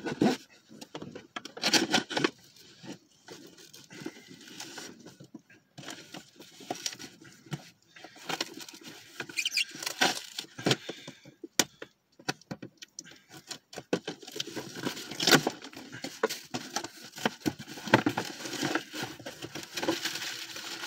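A delivered cardboard package being opened by hand: irregular rustling, scraping, tearing and clicking of the box and its packing.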